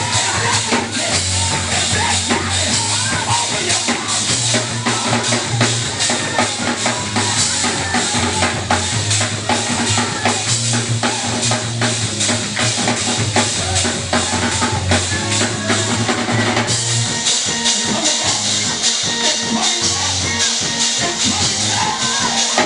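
Church praise-break music with a fast, busy drum kit over sustained bass notes. About 17 seconds in, the bass drops out and the drums carry on.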